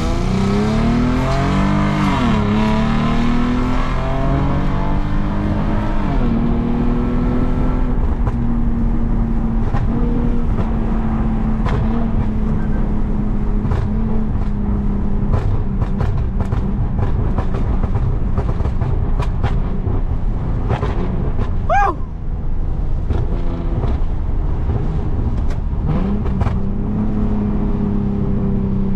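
Tuned Lexus IS250's 2.5-litre V6, its catalytic converters gutted, pulling hard: the revs climb, drop back at two upshifts in the first six seconds, then hold steady. Short sharp crackles come from the exhaust through the middle stretch.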